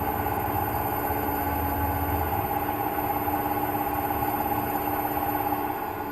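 Wood lathe motor running steadily, spinning a square glued-up wood blank that has not yet been turned round; the unbalanced blank sets up a little vibration. The hum eases slightly near the end.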